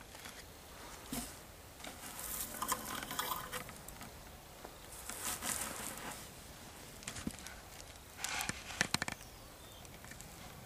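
Three bursts of rustling and crunching, the last with a few sharp clicks and the loudest, about three seconds apart.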